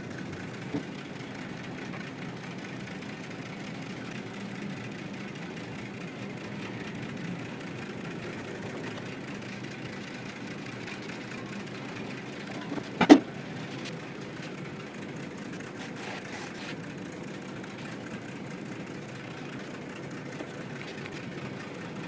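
Steady mechanical background hum with one sharp tap about thirteen seconds in.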